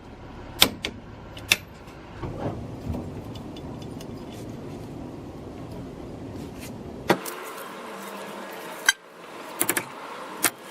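Wrench and socket work on a Jeep Cherokee's ball joint nuts: a few sharp metallic clicks and clanks, with a quick run of clicks near the end. Under them is a low steady background noise that cuts off abruptly about two-thirds of the way through.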